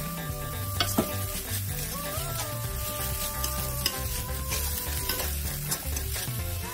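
Instant noodles being stir-fried in a wok: a metal spatula scraping and clicking against the pan over a steady sizzle of frying. Background music with held notes plays underneath.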